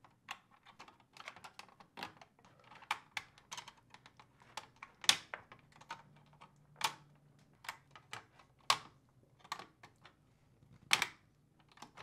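Plastic wiring-harness connectors being handled and pushed into the sockets of a Whirlpool dishwasher's electronic control board: a run of irregular light clicks and taps, with a few sharper clicks about five, seven and eleven seconds in.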